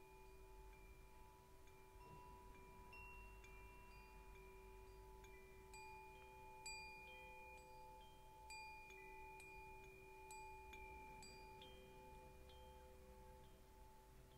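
Faint, slow background music of chime-like struck notes that ring on in long held tones.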